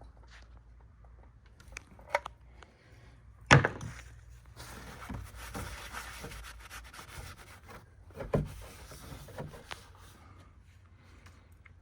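Handling sounds from work under a car: a few knocks, a loud knock about three and a half seconds in, then several seconds of rubbing and scraping, and another knock about eight seconds in.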